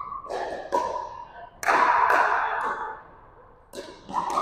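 Pickleball paddles striking the plastic ball: about five sharp pocks, each ringing and echoing in a gymnasium, the loudest about one and a half seconds in.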